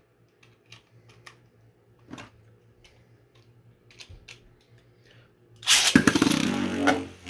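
Faint scattered small clicks, then about six seconds in a sudden loud rush as Beyblades are launched into the stadium and spin and clash against each other.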